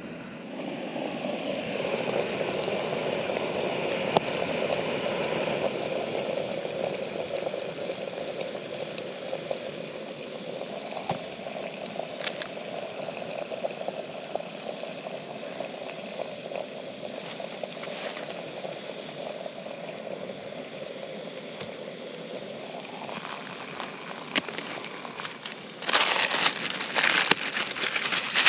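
Water gurgling steadily, its pitch rising near the end, then a couple of seconds of louder splashing.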